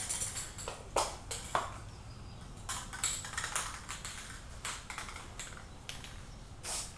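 A few short hissing bursts of a spray paint can mixed with light clicks and taps of handling, irregularly spaced.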